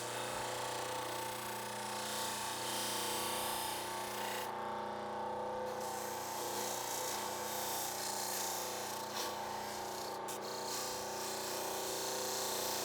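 A power tool's electric motor running steadily, a constant hum with a hiss above it. The hiss drops away for about a second around four and a half seconds in, and there is a small click near ten seconds.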